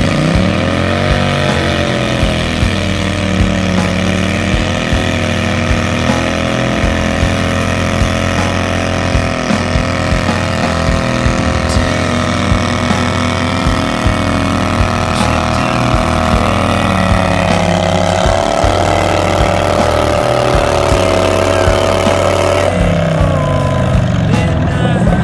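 A John Deere garden tractor's engine running hard under load while it drags a weight-transfer pulling sled. The pitch climbs as the pull begins, holds high and wavers as the sled bears down, then drops near the end as the tractor stops.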